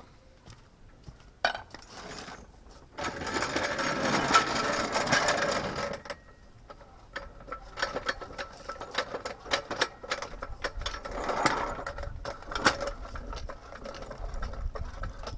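Metal car jack being fetched and worked: a loud, rapid mechanical rattle for about three seconds, then scattered clicks and knocks of metal, with a low rumble near the end.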